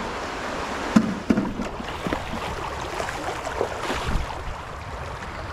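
Rubber boots wading through shallow creek water: irregular splashing and sloshing over the creek's steady rush, with a couple of sharper splashes or knocks about a second in.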